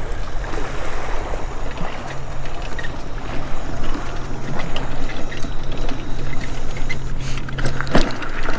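Wind rushing over the microphone, with a steady low hum through most of it and one sharp knock about eight seconds in.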